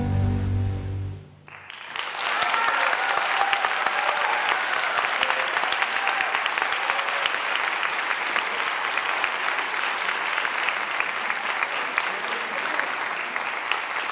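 The last low, held notes of the dance music end about a second in, and an audience then applauds steadily.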